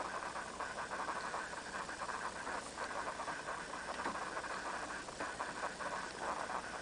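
Steady low background hiss, with a few faint clicks as the bread machine's hinged plastic lid is lifted open.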